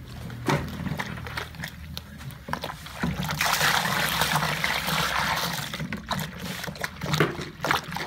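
Liquid being poured into a large plastic drum, a steady pour for about three seconds from about three seconds in, with scattered knocks and scrapes of containers and a stirring stick around it.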